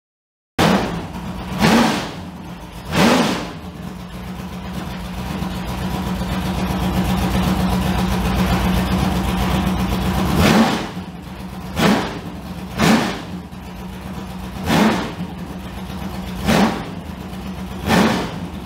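A 1968 LeGrand Mk7 Formula 5000 car's V8 engine running on its first start after a rebuild. It is blipped twice, then held at a slowly rising fast idle for several seconds. After a sharp rev it settles to idle, with throttle blips every one to two seconds.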